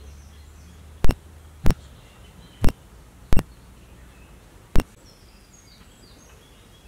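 Five sharp, loud knocks at uneven intervals over about four seconds, against faint high chirping.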